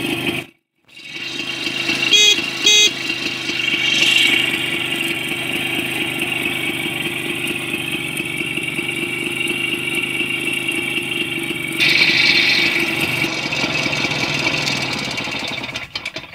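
1976 WSK 125's single-cylinder two-stroke engine running at idle, with the revs picking up briefly about four seconds in and again around twelve seconds. Two short horn beeps sound about two seconds in.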